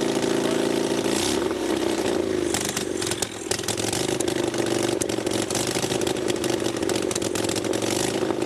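Vintage Harley-Davidson V-twin racing engine with no exhaust pipes, its exhaust firing straight out of open ports, running loud while the throttle is worked: the pitch sags and wobbles about a second in, then it runs on with sharp crackling pops.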